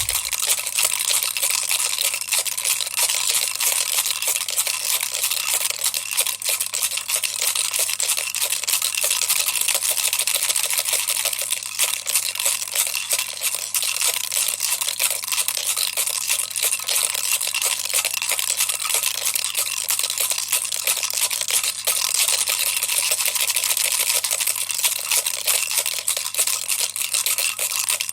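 Toy rattle shaken continuously, a dense, even clatter of fast clicks with no pauses.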